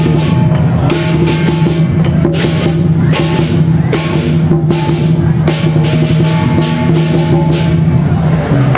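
Lion dance percussion: a large Chinese lion drum beaten over repeated crashes of hand cymbals, loud and continuous.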